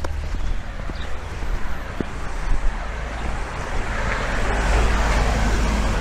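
A car driving past on the street, its tyre and engine noise swelling to a peak about five seconds in and starting to fade, over a steady low rumble of wind on the microphone.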